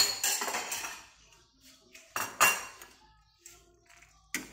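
Kitchen dishes and utensils clattering: a burst of clinking and rattling, then two sharp knocks a little after two seconds in and another near the end.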